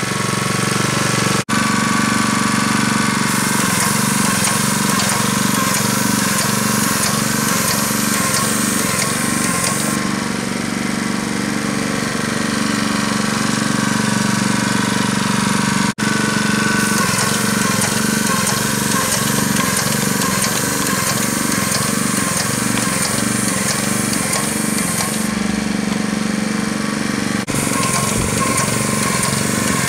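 Airlessco Sure Stripe 3650 airless line striper running: its small gasoline engine and paint pump run steadily with a rapid rhythmic pulsing. A high hiss comes and goes as it stripes, and the sound cuts out abruptly for an instant a few times.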